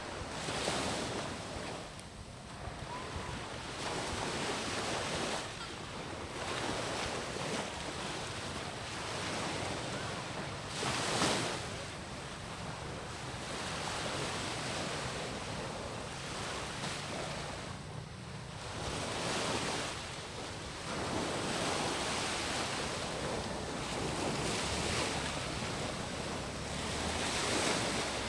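Strong sea surf breaking and washing onto a beach. The noise swells and falls every few seconds as each wave comes in, with the loudest surge about eleven seconds in.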